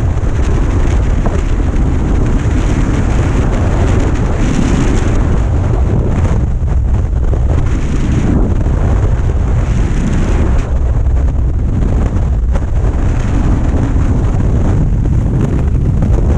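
Freefall wind rushing over a helmet-mounted camera's microphone: loud and steady.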